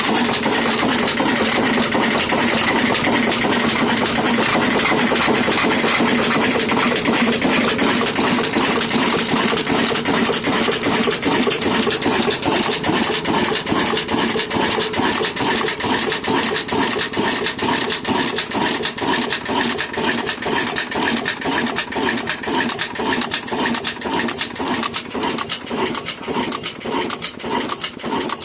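An old stationary diesel engine running. Its exhaust beats are blurred together at first, then from about the middle on they come as distinct, evenly spaced thuds, slowing a little toward the end.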